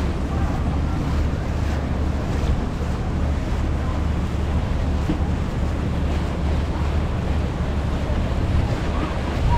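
Steady low drone of a passenger river cruise boat under way, with water washing along the hull and wind buffeting the microphone on the open deck.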